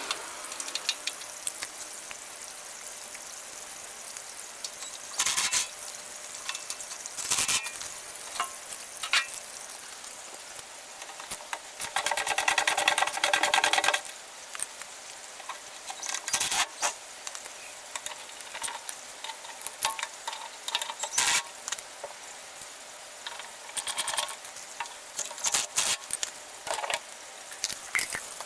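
Hand work on metal parts: scattered sharp clicks and clinks, with a louder stretch of rapid, even clicking lasting about two seconds near the middle.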